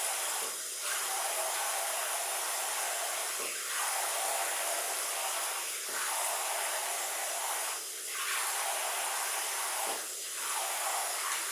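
Handheld shower head spraying water steadily onto a child's head and shoulders, rinsing shampoo out of his hair. The hiss of the spray dips briefly every two to three seconds.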